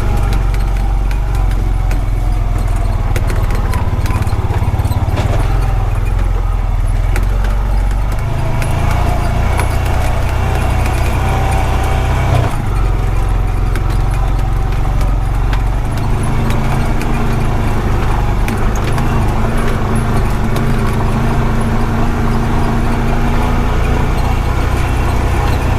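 A Honda Pioneer 520 side-by-side's single-cylinder engine running under way, with a steady low rumble that shifts in level a few times. Light rattling from the machine runs through it.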